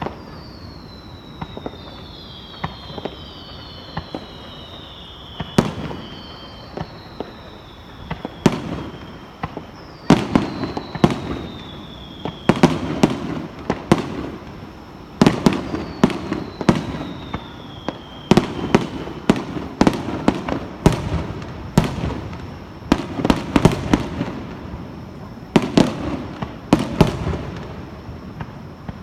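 Aerial fireworks display: a rapid run of shell bursts, bangs and crackles that grows denser from about ten seconds in, with several high whistles that fall in pitch.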